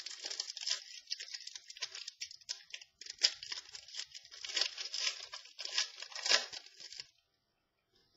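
Trading cards and their packaging being handled: a run of quick crinkling and crackling that stops about seven seconds in.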